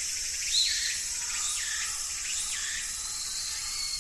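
Steady, high-pitched insect chorus, with a bird calling over it in repeated swooping whistles that dip down and rise back up.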